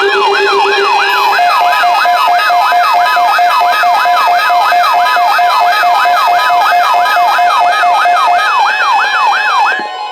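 Electronic emergency alert warning tone: a siren-like sweep up and down about three times a second, layered over steady and pulsing beeps, cutting off near the end.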